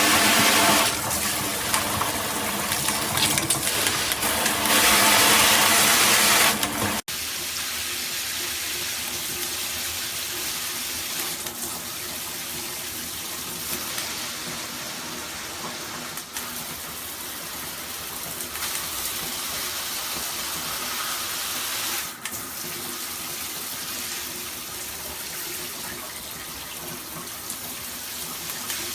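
Water spraying from a handheld shower head. It is loud for about the first seven seconds, then after a sudden break it runs as a quieter, steady spray.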